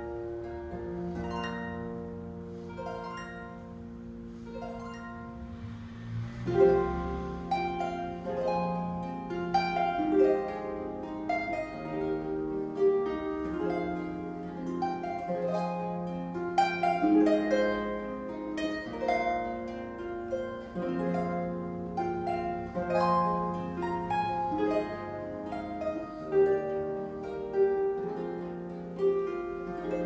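Solo harp playing: a melody of plucked notes ringing over sustained bass notes, soft for the first few seconds and then fuller and louder from about six seconds in.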